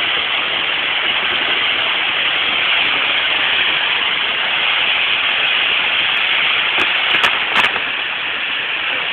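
Fireworks on a castillo (fireworks tower) burning with a loud, steady hiss, broken by a few sharp pops between about six and eight seconds in.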